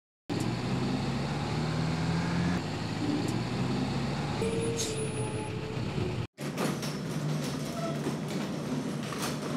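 Scania R590 truck's V8 diesel engine running steadily, a low hum with hiss. The sound drops out for an instant a little past halfway, then the engine carries on.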